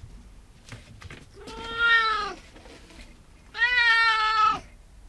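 Domestic cat meowing twice, two long drawn-out meows of about a second each, begging for something it wants.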